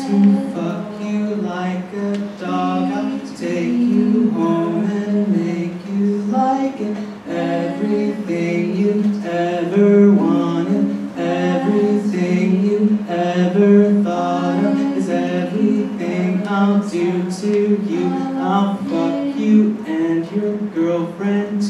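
Several voices singing a cappella into handheld microphones, a melody moving over a low note that keeps repeating.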